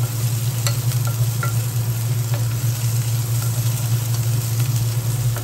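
Garlic, ginger, lemongrass and lime leaves sizzling in hot oil as a wooden spoon stirs them round a nonstick pot, with a few light spoon taps, over a steady low hum. The aromatics are being sautéed until fragrant.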